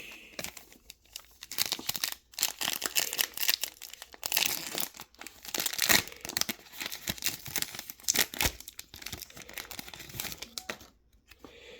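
A trading card pack's plastic wrapper being torn open and crinkled by hand: a run of irregular crackles and rustles.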